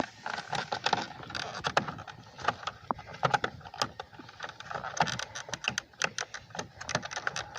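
Irregular clicks, taps and light rattles of plastic parts on a pickup's side mirror being handled and pried at while a turn signal light is removed.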